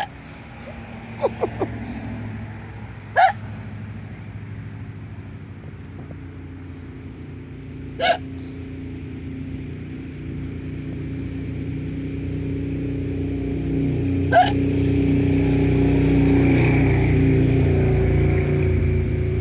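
A woman hiccupping in a persistent bout: four sharp hiccups, a few seconds apart, each the loudest sound in its moment. A low motor hum grows steadily louder behind them through the second half.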